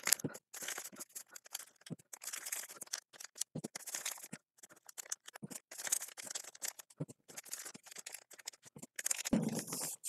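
A glue stick rubbed over folded paper, then glued paper cubes handled and stacked together: soft, irregular scratching and rustling of paper.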